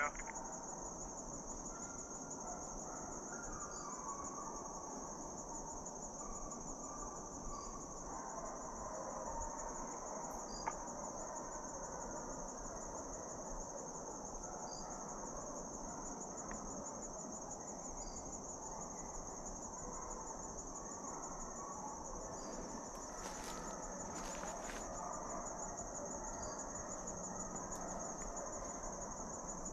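Insects trilling in a steady high-pitched chorus, over a faint wash of woodland background noise, with one sharp click about ten seconds in.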